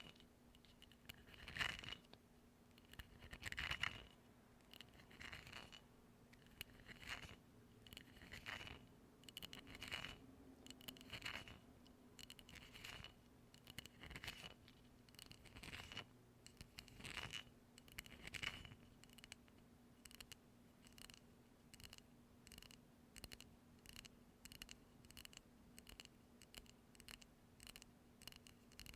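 Faint, repeated scratching strokes on an object held close to the microphone, spaced a second or two apart at first and quickening to about two a second in the second half.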